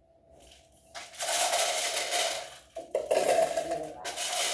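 Glass marbles rattling and clicking against each other and the sides of a small clear container as it is shaken, in three spells starting about a second in.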